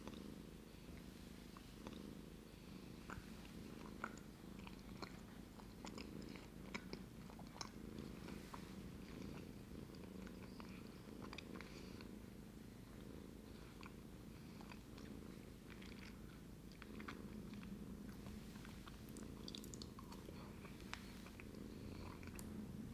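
Domestic cat purring steadily in a low, even rumble, with scattered light clicks and taps throughout.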